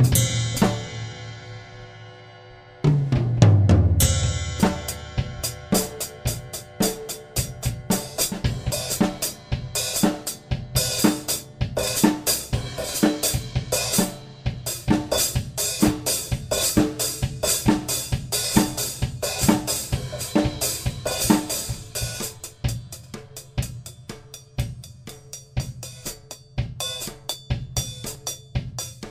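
Mapex Saturn walnut/birch drum kit with Zildjian Z3 cymbals being played: a big cymbal-accented hit rings out for about three seconds, then a second big hit with a deep ring that falls in pitch, followed by a steady groove of bass drum, snare and cymbals.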